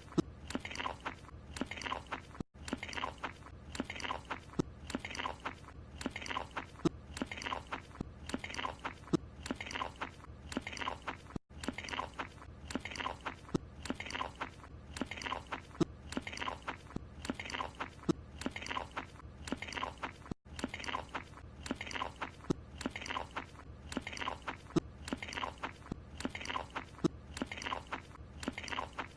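Cartoon chewing and crunching of a croissant, about two chews a second. The short clip loops over and over, with a brief break roughly every nine seconds where it starts again.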